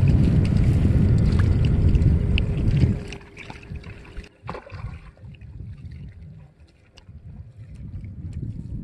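Wind buffeting the microphone with a heavy low rumble that drops away suddenly about three seconds in, leaving a much quieter background with a few faint clicks.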